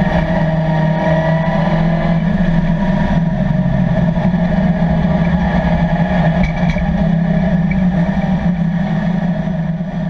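Chevrolet Camaro race car's LS3 V8 running at a steady engine note, heard from inside the stripped cabin, with road and wind noise.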